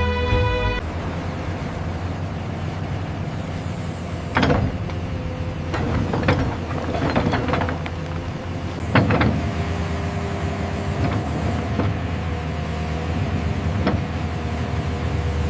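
Excavator's diesel engine running steadily, with a number of sharp metallic knocks and clanks from the working bucket and arm, the strongest about four and a half and nine seconds in.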